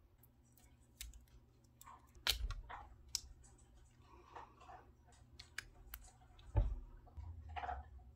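Fingernails and plastic caps clicking and tapping on small soda-can-shaped lip balm tubes as they are handled. There are scattered light clicks and two sharper knocks, about two seconds in and again about six and a half seconds in.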